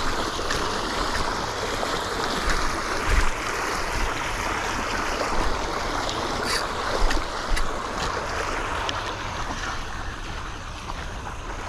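Steady rushing outdoor noise of wind and water, with a few brief low bumps on the microphone and faint clicks.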